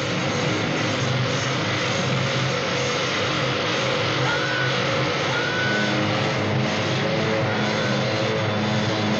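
Goregrind music: a loud, dense wall of heavily distorted sound with low notes shifting underneath and no distinct drum hits standing out.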